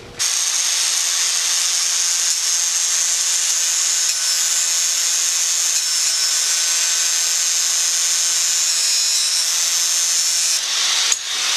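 Handheld electric angle grinder running steadily with a high whine. It dips briefly about half a second before the end, then picks up again.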